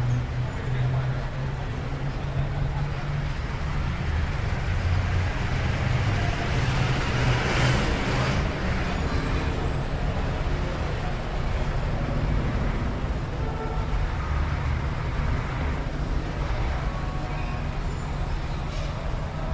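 Steady low rumble of road traffic, with one swell about seven to eight seconds in, like a vehicle passing.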